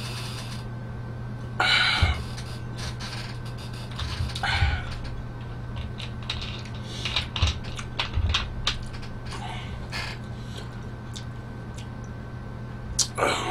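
Close-miked eating-and-drinking noises: a plastic soda bottle being handled, along with mouth sounds. There are two short rustly bursts in the first few seconds, then a run of small sharp clicks and crackles, all over a steady low room hum.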